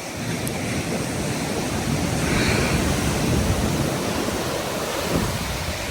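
Sea waves surging and breaking in a steady, loud rush of surf, swelling up in the first second, with wind buffeting the microphone.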